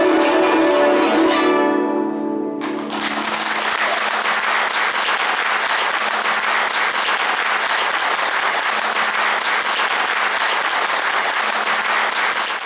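Guzheng's last plucked notes ringing out and dying away, then audience applause breaks out about three seconds in and continues steadily, fading out at the end.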